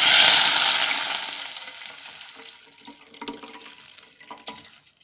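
Cooked dal water poured into a kadai of hot oil tempering (mustard seeds, urad dal, chillies, curry leaves), sizzling loudly at first and dying away over about two and a half seconds. A few light knocks come near the end.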